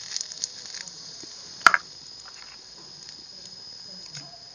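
Steady high-pitched insect trill, like crickets, under the quiet simmer of a pan on a wood fire, with a few light clicks early on and one sharp click near the two-second mark, the loudest sound.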